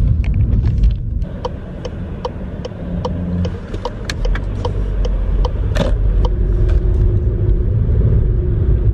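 Car engine and road rumble heard from inside the cabin, with a string of light clicks about two or three a second and a brief knock about halfway through.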